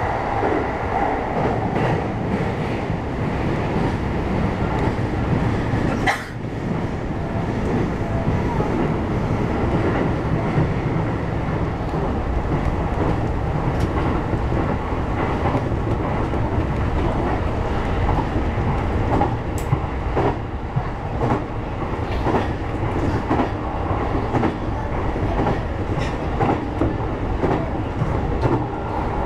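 E233-series electric commuter train running on the rails, heard from behind the driver's cab: a steady rumble of wheels on track, with irregular clacks as the wheels pass over rail joints.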